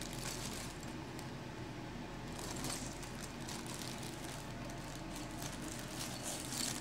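Faint crinkling of a clear plastic bag, with small Lego pieces rattling and clicking inside it as they are sorted and picked out, over a low steady hum.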